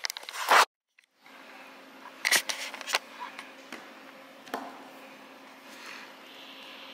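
A few short scrapes and clicks of small objects being handled, spaced a second or more apart, over a faint steady hum; the sound drops out completely for a moment about a second in.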